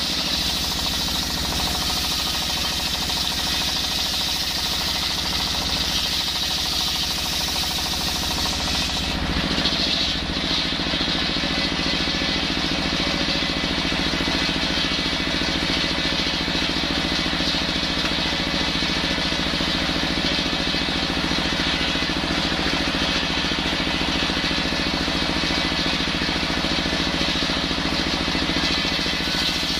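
Stationary single-cylinder diesel engine running steadily, driving a large circular saw blade that rips lengthwise through a coconut log, the blade's cutting hiss over the engine. The highest part of the hiss eases about nine seconds in.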